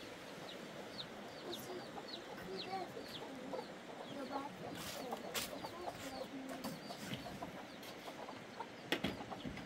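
Chickens clucking in short calls, with a run of quick high chirps, and a sharp knock near the end.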